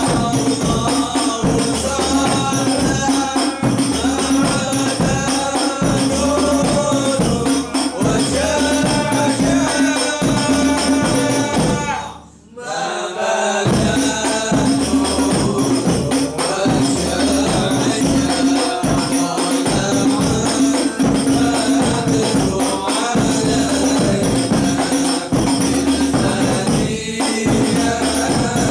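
Sholawat sung by a man into a microphone, over the steady beat of hadroh frame drums. The music drops away for about a second around twelve seconds in, then resumes.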